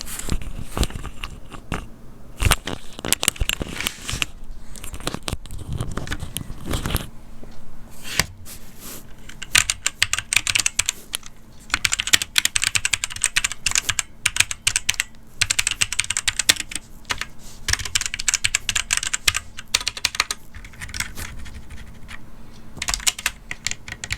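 Typing on an ADX Firefight WMK05 compact wireless mechanical keyboard with red switches, picked up by a mic placed close to the keys: quick runs of key clicks with short pauses between, busiest in the middle of the stretch.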